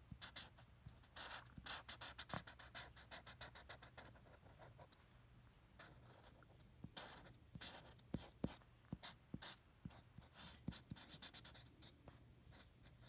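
Faint scratching of a pen on paper in quick, repeated strokes as an area is filled in, coming in several runs with short pauses between them.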